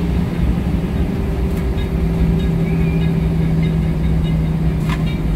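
Cabin noise inside an Airbus A319 taxiing, with the steady low hum of its engines at idle and a rumble from the rolling gear. There is a single sharp click near the end.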